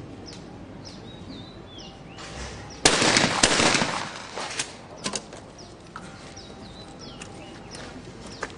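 A shotgun shot at a skeet target about three seconds in, ringing out and fading over about a second, followed by a few fainter cracks. Small birds chirp throughout.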